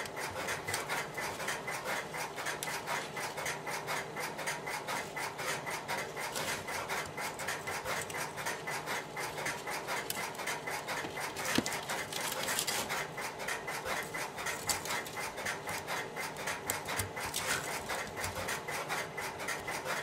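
Steady rhythmic rubbing and scratching, a few strokes a second: insulated wires being drawn and pressed into the slots of a 25-pair AMP/Champ connector by hand.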